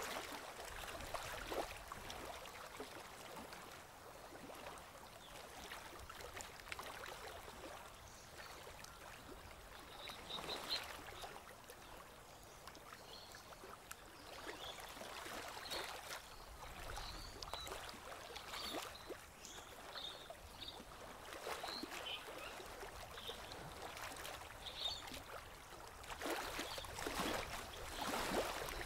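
Small ripples of river water lapping and trickling softly at the bank, irregular and quiet, a little stronger near the start and near the end.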